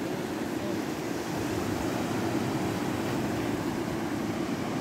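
Steady low rushing noise of the seashore, a mix of surf breaking on rocks and wind on the microphone, with no distinct events.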